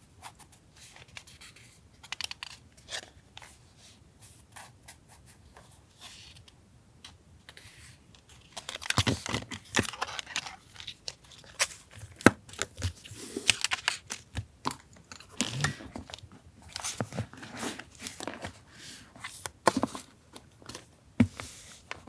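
Paper being handled while decorating a journal page: rustling, crinkling and tearing, with light taps and clicks. Sparse for the first several seconds, then busier.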